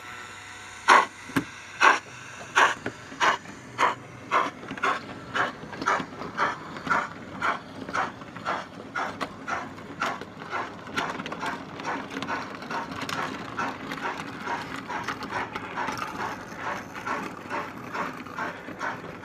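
Model freight train running past and away along the layout: a regular beat of sharp clicks, about two a second at first, quickening a little and growing fainter, over a low steady rolling hum.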